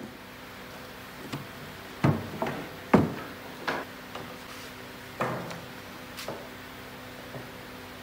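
Irregular knocks and clatters of plywood panels and a nail gun being handled on a wooden workbench, the loudest about three seconds in, over a steady low hum.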